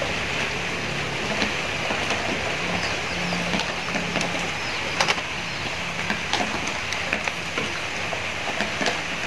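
Egg noodles cooking in a wok of water on a gas burner: a steady bubbling hiss, with sharp clicks of wooden chopsticks knocking the metal wok as the noodles are stirred and lifted, the loudest a little past halfway.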